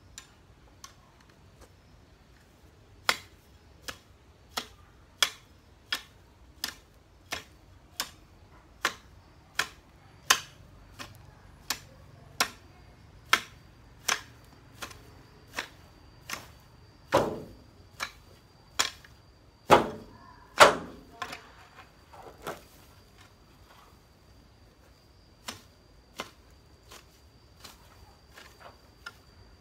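Long-handled hoe chopping into grassy soil with regular sharp strikes, about three every two seconds. A few heavier blows come about two-thirds of the way through, then a short pause and a few sparser strikes near the end.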